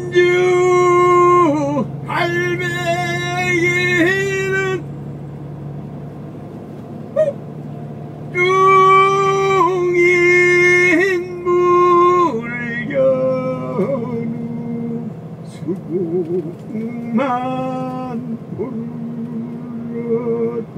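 Music with a singing voice holding long notes, several sliding down at their ends, in phrases with short gaps, over the steady low hum of a moving vehicle.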